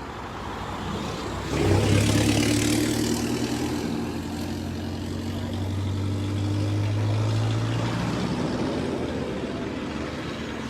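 A motor vehicle's engine running close by at a steady pitch. It comes in sharply about a second and a half in, with a rush of road noise, then eases off near the end.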